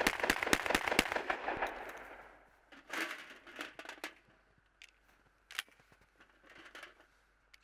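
Panzer Arms M4 12-gauge semi-automatic shotgun fired in a rapid string of shots over about a second and a half, the reports echoing away afterwards. Then scattered metallic clicks of shells being pushed into the magazine tube.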